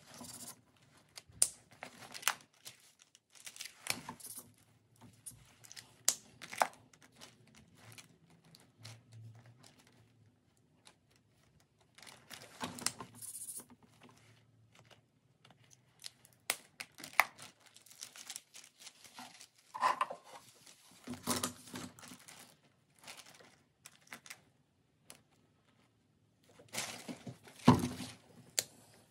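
Felt-tip marker scratching across paper in quick hatching strokes, coming in irregular bursts with short pauses between them.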